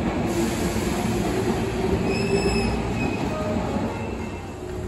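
Hankyu electric commuter train moving along the station platform: a steady rumble of wheels and running gear, with a faint high wheel squeal about two seconds in. The sound eases off slightly near the end.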